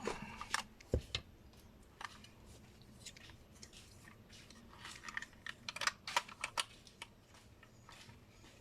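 Small plastic parts of a car power-window master switch being handled and fitted together by hand: scattered light clicks and taps, with a firmer knock about a second in and a quick run of clicks a little past the middle.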